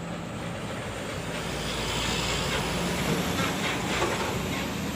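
Plastic wheels of a toy tanker truck rolling along the ground: a steady rumble that grows louder partway through, with a few light clicks.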